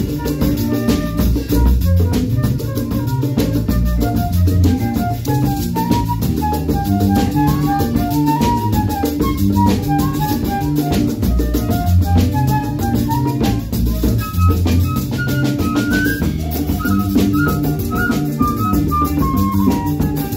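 Instrumental music with a drum kit keeping a steady beat under a bass line and a melody of short, bright notes.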